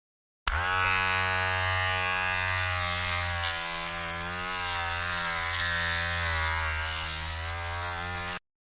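Electric hair trimmer switched on about half a second in and buzzing steadily, its pitch wavering slightly, then cutting off suddenly near the end.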